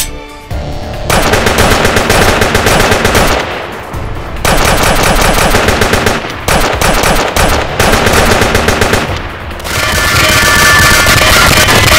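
Sustained automatic machine-gun fire, an added sound effect, in long rapid bursts with a short break about three and a half seconds in.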